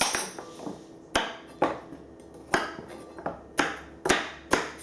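A metal utensil knocking and clinking against kitchen dishes: about eight sharp knocks, roughly two a second, each ringing briefly.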